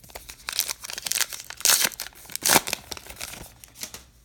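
A trading-card pack's printed wrapper being torn open and crinkled as the cards come out, a run of crackles that is loudest about halfway through and dies away near the end.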